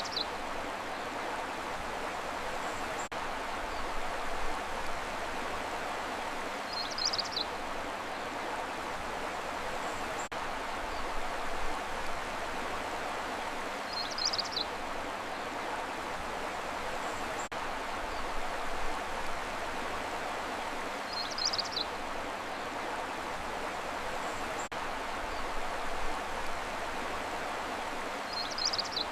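Steady flowing-water noise of a stream, with a brief high bird chirp recurring at even intervals about every seven seconds: a looped nature ambience track.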